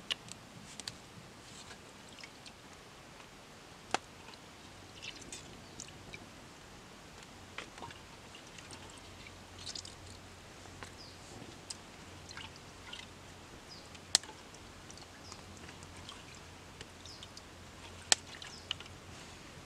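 Faint wet handling sounds and dripping water as frogs are lifted out of a clay pot of water and dropped onto a banana-flower bract, with a few sharp clicks scattered through.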